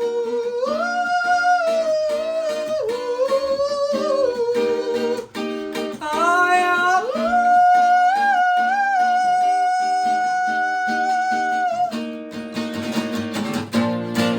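Wordless humming of a slow melody in long held notes over strummed plucked-string accompaniment. The humming stops about twelve seconds in, leaving the strumming alone.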